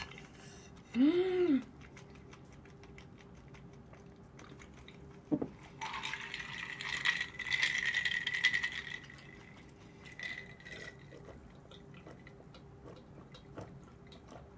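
Cola poured into a cup for about three seconds, hissing and fizzing, shortly after a single click. Earlier, a short hummed voice sound rises and falls.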